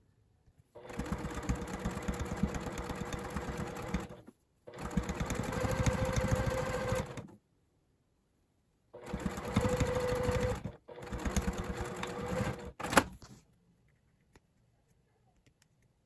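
Juki sewing machine stitching at speed in four runs of a few seconds each with short breaks between, sewing a collar onto a shirt. A sharp click, the loudest moment, comes as the last run stops.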